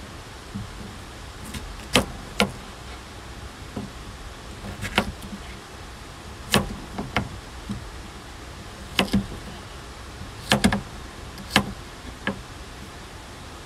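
Kitchen knife cutting down onto a plastic cutting board on a metal table: about a dozen sharp, irregular knocks, some in quick pairs, over a steady background hiss.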